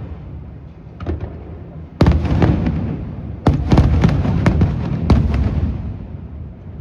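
Fireworks going off: a smaller bang about a second in, then big booms at about two, three and a half and five seconds, each followed by crackling. The crackling dies away near the end.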